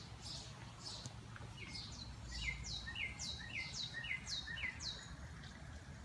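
A bird calling in a quick series of about ten short high notes, each sliding down in pitch, roughly two a second.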